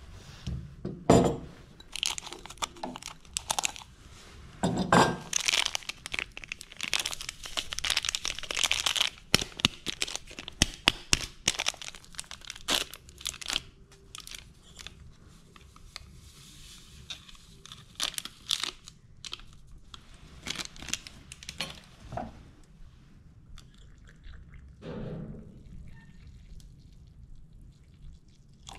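Plastic instant-coffee stick sachets crinkling and being torn open, with sharp clinks from a small glass jar and its lid. The crinkling is dense for the first half, then gives way to scattered clicks and taps.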